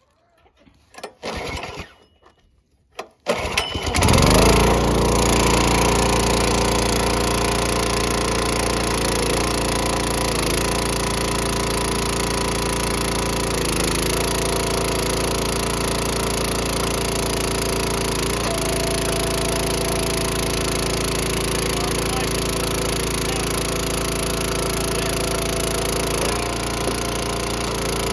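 Small gas engine of a Dirty Hand Tools 30-ton log splitter being pull-started after three months sitting: a few short pulls, then it catches about four seconds in and runs steadily, its note dipping briefly a few times.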